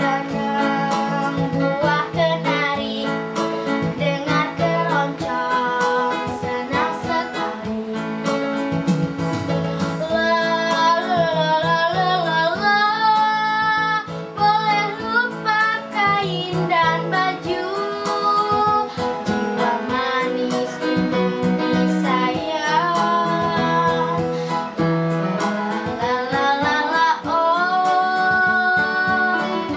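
A girl singing a keroncong song in Indonesian, holding long notes with vibrato, over a Yamaha electronic keyboard playing a keroncong-style accompaniment with plucked-string sounds.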